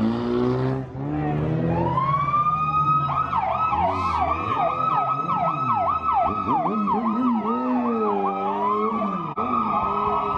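A car engine revving at first, then police car sirens come on: a rising wail about two seconds in, switching to a rapid yelp of several sweeps a second, then easing back to a slower wail near the end.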